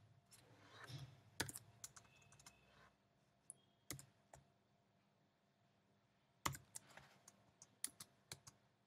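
Faint typing on a computer keyboard: scattered single key clicks, a pause of about two seconds past the middle, then more keystrokes.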